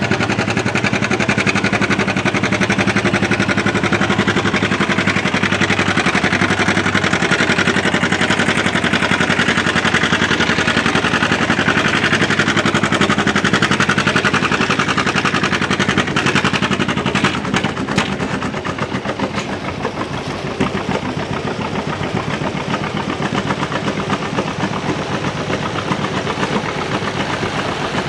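John Deere two-cylinder tractor engine working hard under full load as it pulls a weight-transfer sled, its exhaust a fast steady beat. About seventeen seconds in, with a few sharp knocks, the load comes off and the engine drops to a quieter run.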